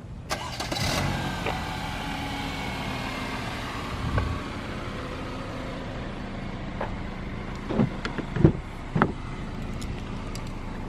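Car engine running steadily, with a sharp sound just as it begins and a few short knocks or thumps about eight and nine seconds in.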